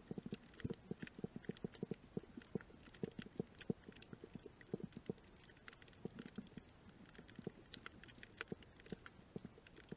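Underwater crackle of a shallow coral reef: an irregular run of small clicks and pops, several a second, with a faint hiss beneath.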